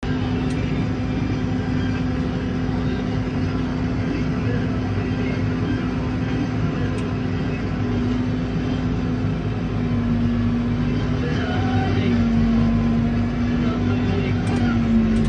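A vehicle engine running at a steady speed with a low rumble and a steady hum, its pitch easing down slightly a few times in the second half.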